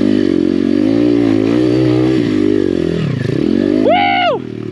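Pit bike's 150cc single-cylinder four-stroke engine running on a trail climb, its pitch rising and falling with the throttle. It eases off about three seconds in, then makes a brief sharp rise and fall in pitch near the end.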